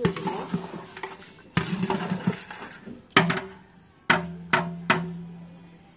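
A long metal spatula stirring and scraping beef in a large aluminium cooking pot, knocking against the pot several times; the last three knocks, about four to five seconds in, leave the pot ringing as it fades.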